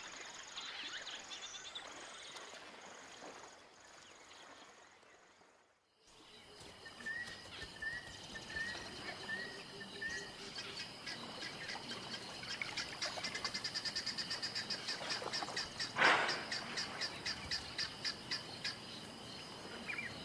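Wild birds calling at dusk over a steady high trilling chorus. About seven seconds in comes a row of five short chirps, then a fast pulsing trill builds through the middle, and one louder harsh call stands out about sixteen seconds in. Near six seconds in the sound drops almost to silence for a moment.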